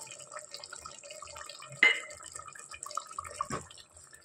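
Chicken cooking in a wet masala in a metal pot, with soft bubbling and a steel spoon stirring through the mixture. The spoon knocks sharply against the pot about two seconds in, and again more softly a little later.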